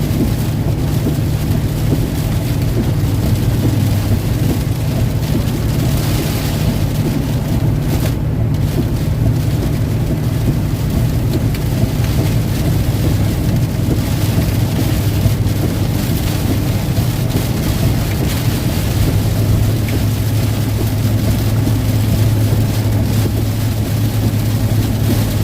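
Steady engine and road drone heard from inside a vehicle driving at highway speed, with a hiss of rain and wind on the vehicle.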